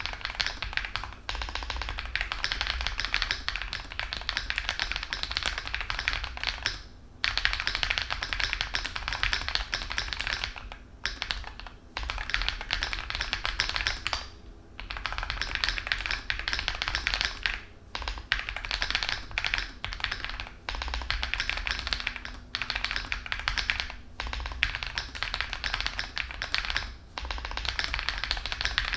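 Fast typing on a CIY GAS67 mechanical keyboard fitted with cherry-profile PBT keycaps: rapid key clicks in runs of a few seconds, broken by brief pauses.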